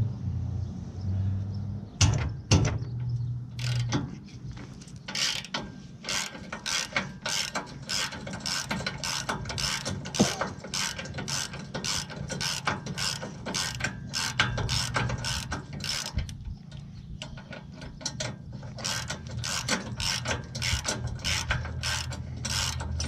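Hand ratchet wrench clicking as a bolt is turned out, in a steady run of about two to three clicks a second with a short pause partway through.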